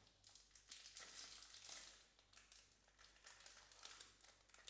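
Faint crinkling of packaging being handled, in irregular rustling bursts, busiest in the first two seconds.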